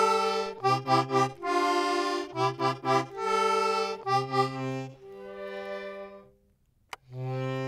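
Music: short repeated notes in groups of three alternate with held chords over a bass line. It fades away about six seconds in, a single click follows, and then one last chord is held.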